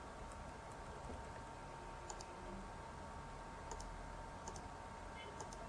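Computer mouse clicking a few times, the clicks coming in quick pairs, over a steady faint background hiss and hum.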